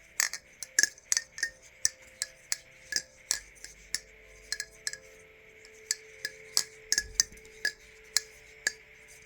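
Aluminum-handled balisong (butterfly knife) being flipped: a run of sharp metallic clicks and clinks, roughly two a second, as the handles swing round and strike the pins and each other.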